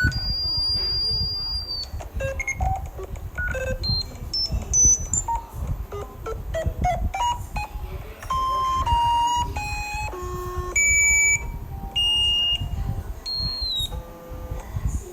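Emergency-alert-style electronic attention tones. A steady high beep lasts about two seconds, then a quick run of short beeps jumps up and down in pitch, then a series of longer beeps steps between different pitches, over a low rumble.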